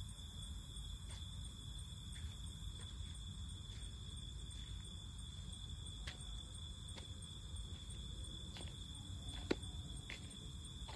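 Faint night insects, likely crickets, chirring in one steady high tone over a low steady rumble, with a few scattered footstep clicks as a man walks over a gritty road surface; the sharpest click comes near the end.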